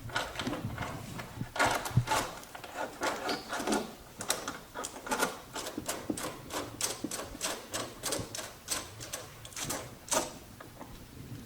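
Hand ratchet with a 10 mm socket clicking as bolts holding the fender are backed out: a few scattered knocks at first, then a steady run of about four clicks a second for several seconds.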